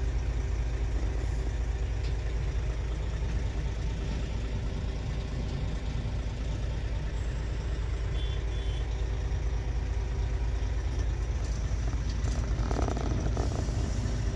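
Articulated rock truck's diesel engine running, heard from inside the cab: a steady low drone.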